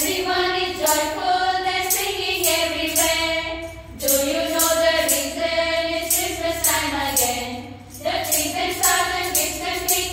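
A group of women singing a Christmas carol together through microphones, in long sustained phrases with brief breaks about four and eight seconds in, over a light steady beat of about two strokes a second.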